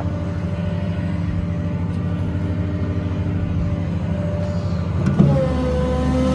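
6.0 Power Stroke V8 diesel of a Ford F550 running steadily with the PTO engaged, driving the hydraulic pump. About five seconds in a clunk is followed by a whining hydraulic tone and a heavier engine note, as a hydraulic function is put under load.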